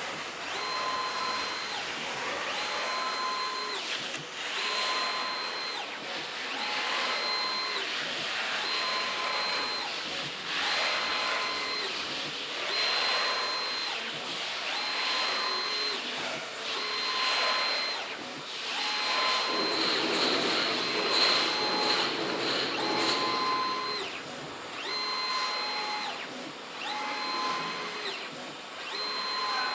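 A 2-in-1 pattern plotter and cutter running, its motors whining in short repeated moves of about a second each over a steady rushing hiss. The noise grows louder and fuller for a few seconds about two-thirds of the way through.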